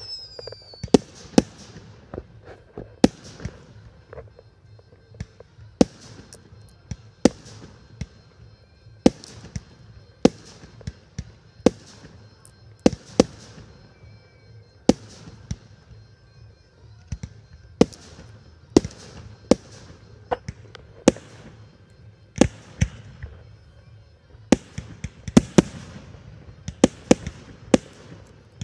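Fireworks display: aerial shells bursting overhead in a string of sharp bangs, each trailing off in an echo, about one a second, coming thicker near the end.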